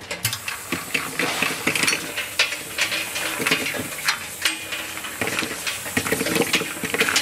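Bottle-capping machine running: the capping head spins caps onto bottles fed from the cap chute, with a steady hiss and irregular clicks and clatters.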